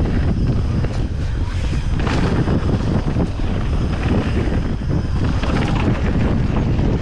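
Wind buffeting the microphone of a downhill mountain bike descending a wet dirt trail, a steady rumble with many small knocks and rattles from the bike and tyres over rough ground.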